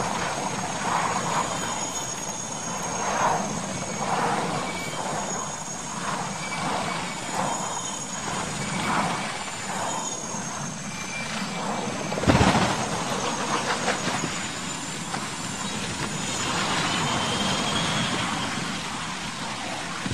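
Military transport helicopter running low overhead, its engine and rotor giving a pulsing beat a little under once a second over a thin high whine. About twelve seconds in comes one loud crash as it strikes the ground, followed by continuing rumbling noise.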